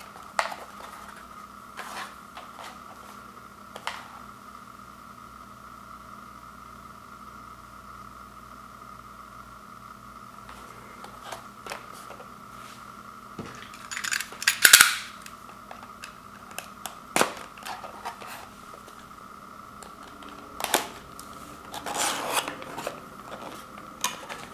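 Cardboard toy box being handled and opened by hand: scattered taps, scrapes and flap sounds, loudest about halfway through and again near the end, over a faint steady background tone.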